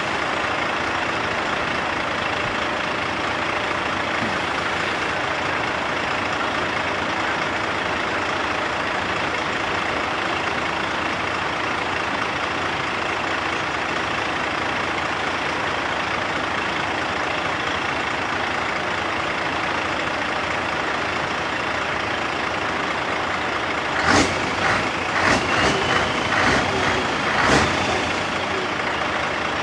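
Heavy truck diesel engines running steadily as a convoy crawls slowly past, the nearest a Scania R-series tractor unit. Near the end, a quick run of seven or eight short, sharp air hisses.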